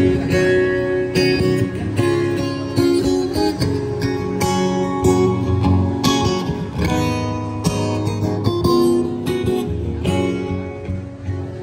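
A street busker strumming an acoustic guitar, playing chords in a steady rhythm.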